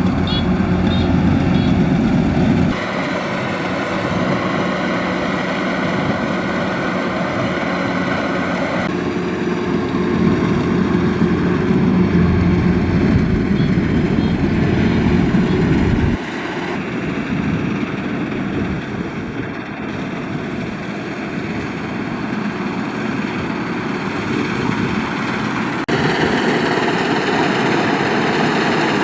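Kubota DC-93 combine harvester's four-cylinder turbocharged diesel engine running steadily, its sound changing abruptly several times.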